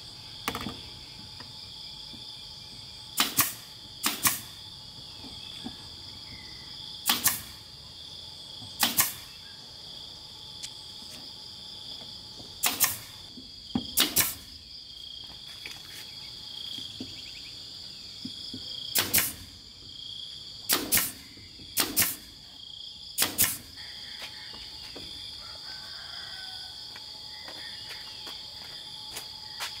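Pneumatic nail gun firing nails into a wooden gate post: about a dozen sharp shots a second or more apart, some in quick pairs. Insects chirr steadily and high-pitched underneath.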